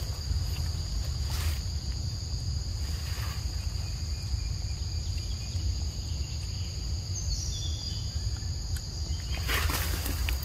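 Steady insect chorus, a high-pitched drone on two pitches, over a low rumble, with a few brief rustles about a second and a half in, about three seconds in, and near the end.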